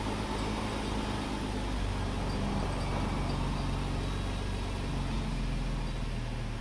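2005 Nissan Murano's 3.5-litre V6 idling, heard from inside the cabin. Its pitch shifts a couple of times as the idle air volume learn runs.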